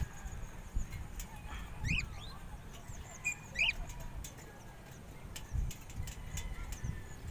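A few short, rising bird chirps, about two and four seconds in, over a low rumble of wind on the microphone.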